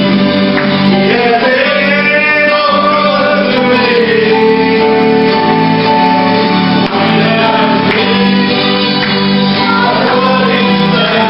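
Congregation singing a hymn together, with long held notes.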